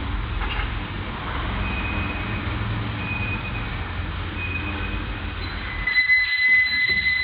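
Machinery running with a steady low rumble and a thin high squeal that comes and goes. About six seconds in, the rumble drops away and a steadier high whine remains for the last second or so.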